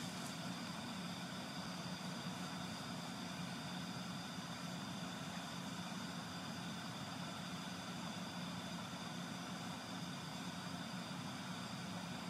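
Camping fan heater running at full power: a steady, even hum with faint high tones above it.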